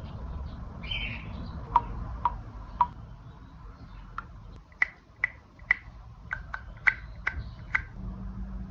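Handmade squishy pop-it toy being pressed, giving short, crisp pitched pops that sound like iPhone keyboard typing. Three lower pops come first, then about eight higher ones at a slightly quicker pace.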